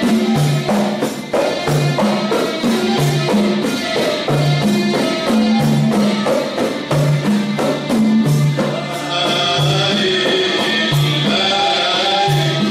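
Sufi devotional music: a jingling tambourine and drums keep a steady, repeating beat over a low two-note bass figure, and a voice singing comes in about nine seconds in.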